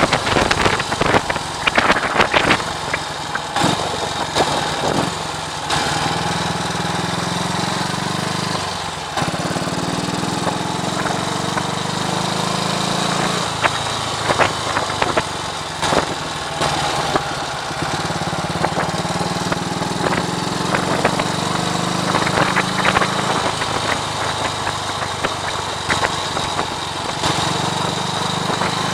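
1939 AJS Model 22 250 cc single-cylinder engine running on the road; its note rises and falls several times over the ride. Wind buffets the microphone throughout.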